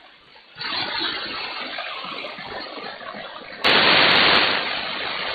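Malachite DSP receiver playing empty-band static hiss on 160 m, with no stations on the frequency. The hiss steps up about half a second in, then surges louder for about a second near the end before settling back.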